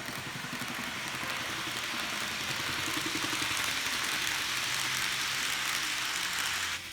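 N-gauge model train (TOMIX 115 series with an M-9 motor) running on track: a steady motor-and-wheel hiss with a fast rattle underneath. It is the 'kotokoto' abnormal running noise whose cause is being traced in the power unit. It cuts off suddenly near the end.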